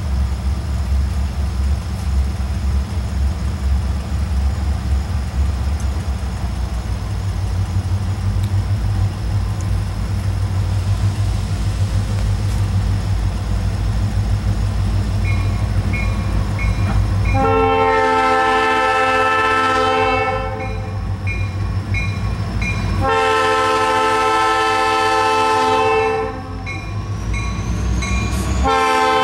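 EMD SD40-2 diesel locomotive approaching with a steady low engine rumble, then sounding its multi-note air horn for the grade crossing: two long blasts about three seconds apart, and a third, shorter blast starting near the end.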